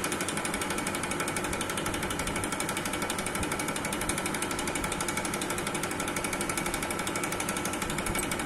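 Reciprocating piston pump running steadily, its strokes making a rapid, even mechanical knocking while it delivers water into the collecting tank.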